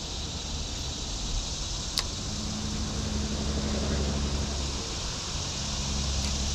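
A motor's low steady hum, clearest in the middle, over a steady high insect drone. There is a single sharp click about two seconds in.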